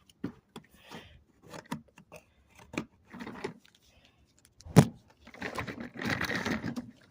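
Handling noises of a shop vacuum's hose being fitted, with the motor off: scattered clicks, knocks and rustling, and one sharp knock nearly five seconds in.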